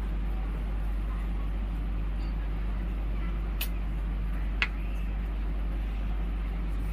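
Steady low electrical hum of a glass-topped electric cooktop switched on under a pan. Two short clicks come about a second apart midway through, the second louder.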